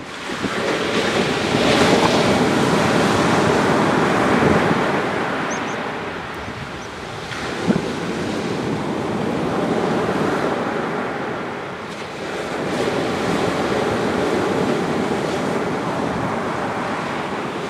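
Surf breaking and washing up a sandy beach, swelling and ebbing in waves every few seconds on a slightly rough sea. A single sharp click sounds a little past the middle.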